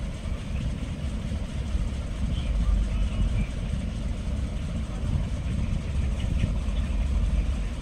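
Mutton pieces cooking in oil on high flame in an aluminium pressure cooker: a steady low rumble with faint sizzling, and a few light scrapes as a slotted spatula stirs the meat.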